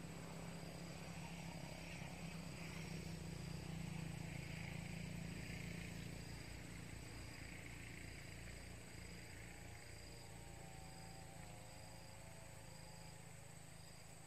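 Outdoor ambience of insects buzzing and chirping, with a short high chirp repeating about once a second, over a low rumble that swells in the first few seconds and then eases off.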